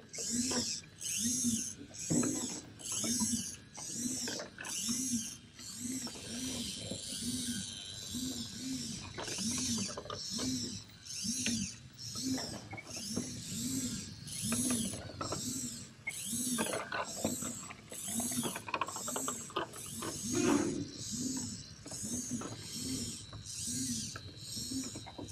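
Motorised LEGO amusement-park ride mechanisms running: a low whir that rises and falls with each cycle, with high clicking and clatter, repeating evenly about one and a half times a second.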